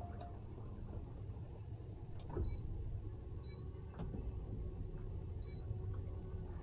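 Low steady rumble of the towboat's engine idling, with a few short high chirps over it.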